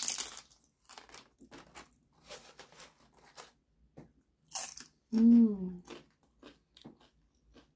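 Close-miked crunching and chewing of a tortilla chip dipped in cheese: a loud crunchy bite at the start, chewing clicks, and another crunchy bite about four and a half seconds in. Right after that bite comes a short vocal sound falling in pitch, the loudest thing heard.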